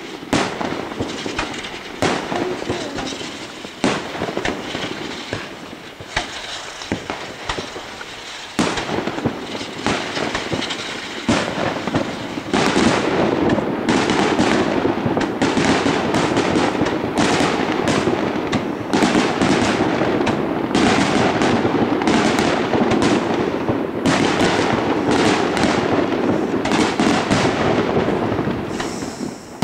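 Aerial fireworks shells bursting: separate sharp bangs at first, then from about twelve seconds in a dense, continuous barrage of rapid bangs and crackle.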